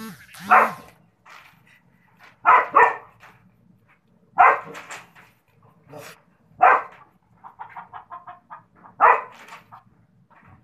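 Black-and-white dog barking at a rooster, about six short separate barks, two of them in quick succession.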